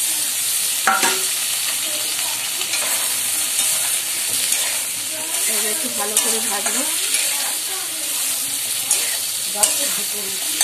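Cut potatoes and onion sizzling steadily in hot oil in a steel kadai, with a few sharp clicks of a spatula against the pan as they are stirred.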